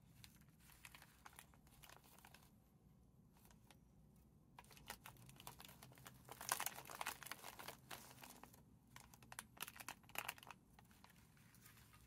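Dry roasted nori sheets crackling and rustling as they are handled and flexed by hand, in faint scattered bursts, loudest a little past halfway.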